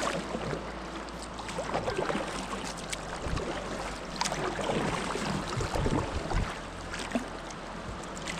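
Water of a shallow river rapid running and splashing around a kayak, with scattered small splashes and knocks.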